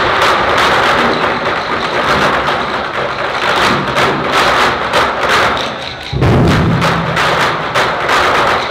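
Twenty-four Festive Drums ensemble of large barrel drums struck with sticks in fast, dense strokes, with a brief drop just before a heavy unison stroke about six seconds in whose low end rings on for about a second.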